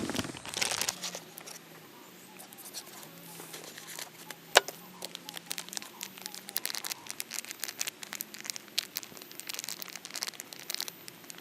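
Small wood fire burning in a stainless steel bowl, crackling with scattered sharp pops and one loud snap about four and a half seconds in. The noise is louder in the first second.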